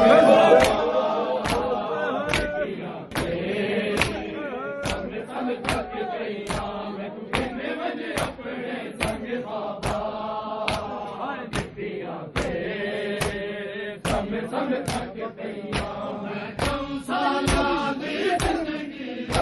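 Group of men chanting a noha in unison while beating their bare chests with open palms (matam). Sharp slaps land together on a steady beat, about every three-quarters of a second, under the chanting.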